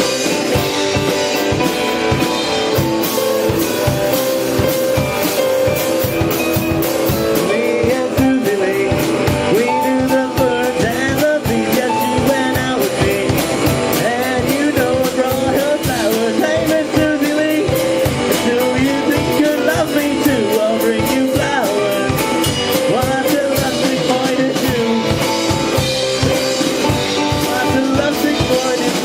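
Live rock and roll band playing, with a drum kit keeping a steady beat under guitar.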